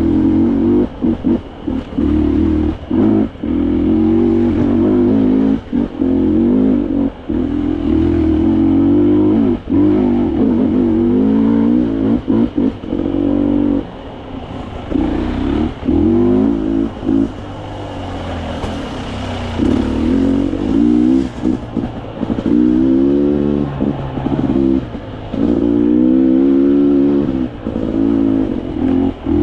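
Dirt bike engine on the trail, revving up and dropping back again and again as the throttle is opened and closed, with frequent brief cuts between bursts of throttle.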